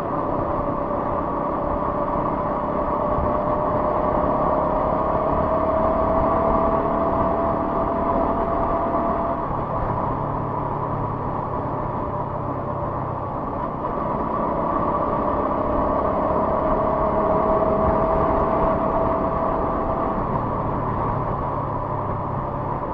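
Motorcycle under way with a steady rush of wind and road noise. Its engine note climbs slowly in pitch twice, over the first nine seconds or so and again in the second half, as the bike gathers speed.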